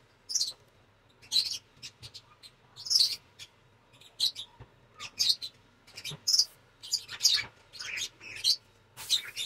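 Small scissors snipping through a thin sheet: a run of short, separate cuts, roughly one or two a second and irregularly spaced.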